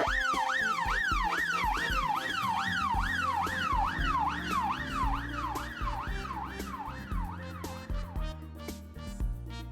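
A siren wailing in a fast up-and-down yelp, about two sweeps a second. It starts abruptly and fades out near the end, over background music with a steady beat.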